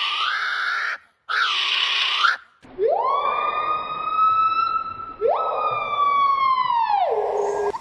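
Bird calls: two harsh, raspy cries, then two long siren-like wails that rise quickly, hold and then fall.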